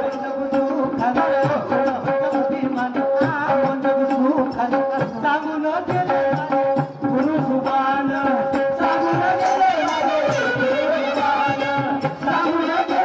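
Live Marathi folk tamasha music: a reed wind instrument plays an ornamented melody with long held notes over a steady beat of hand drums.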